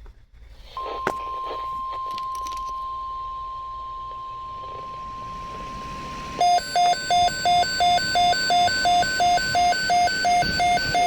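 NOAA Weather Radio's steady 1050 Hz warning alarm tone coming through a Midland WR-120 weather radio, starting about a second in. About six seconds in the radio's own alert alarm starts, a loud high beep repeating about three times a second, signalling that it has received an EAS alert.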